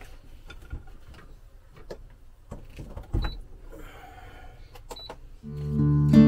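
Clicks and knocks of an electric pressure cooker being handled, with a louder thump about three seconds in and two short high beeps. Acoustic guitar music comes in near the end and is the loudest sound.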